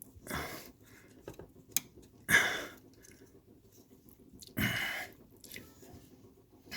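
A man breathing heavily as he strains at the work: three loud, noisy breaths about two seconds apart, with a few faint clicks between them.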